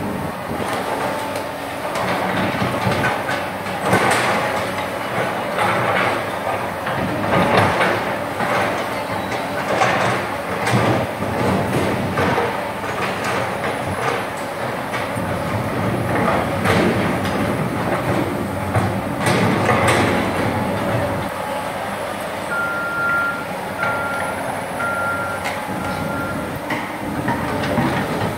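Hydraulic excavator digging and spreading soil: the diesel engine runs hard under load, with repeated clanks and knocks from the bucket and arm. About four evenly spaced alarm beeps sound near the end.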